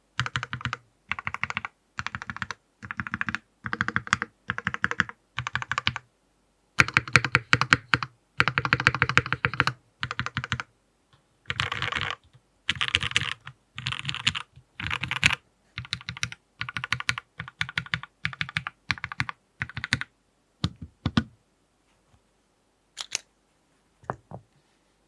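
Typing on a King Keyboards Monarch 65% mechanical keyboard with Gateron Robin switches, a brass plate, GMK Classic Blue keycaps and no case foam: keystrokes in short bursts with brief pauses, a fast dense run about seven seconds in, then thinning to a few single keystrokes near the end. A low boom from the desk sits under each stroke.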